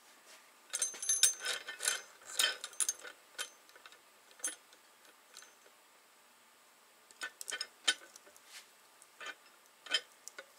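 Metal clicks and clinks as a bar-type valve spring compressor is handled and repositioned on a VR6 cylinder head. They come in a quick cluster about a second in and again after about seven seconds.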